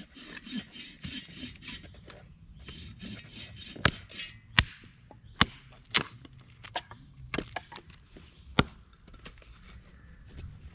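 Hatchet chopping into a short log on a tree stump: from about four seconds in, six sharp wooden knocks roughly a second apart.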